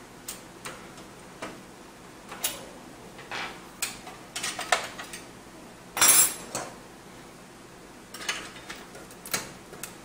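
Scattered light metallic clicks and clinks, the loudest about six seconds in, from a network interface card and its metal bracket being handled and fitted into a PCIe slot of a PC case.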